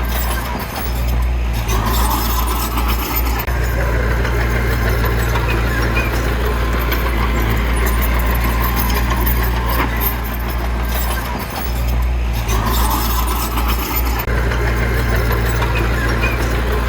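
Heavy earthmoving machine's diesel engine running steadily with a deep drone, with a brief higher-pitched swell about two seconds in and again around twelve seconds.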